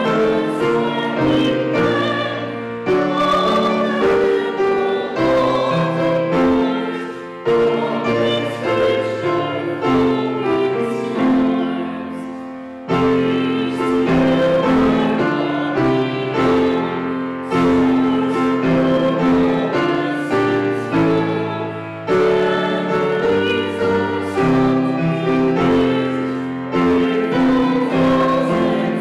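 Grand piano played solo: a slow piece of held chords and melody, phrases that strike and die away, each new phrase starting a few seconds after the last.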